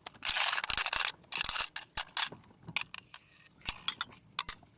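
Handling noise in a small galley: a rustling scrape, then a string of light metallic clicks and knocks as a tin and cooking pans are moved about in a wooden locker.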